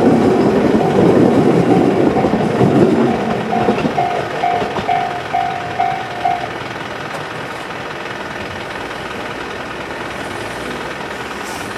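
Tobu 'sound C' electronic level-crossing bell ringing about twice a second over the fading rumble of a passing Tobu 800-series electric train. The bell cuts off about six and a half seconds in, once the train has cleared, leaving a steady background hiss.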